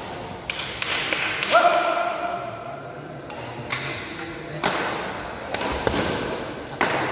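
Badminton rackets striking a shuttlecock during a doubles rally: about six sharp smacks, roughly a second apart, ringing in a large hall. A voice calls out briefly about one and a half seconds in.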